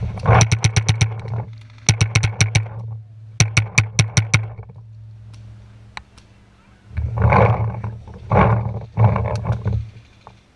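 Paintball marker firing three quick strings of shots, about ten a second, in the first four seconds. Near the end come three short, loud rushing noises.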